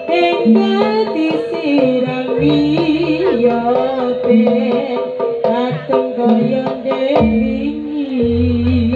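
Live Javanese jaranan (kuda lumping) music: kendang hand-drum strokes over a wavering melody that slides in pitch, with deep low notes held from about two and a half seconds in and again near the end.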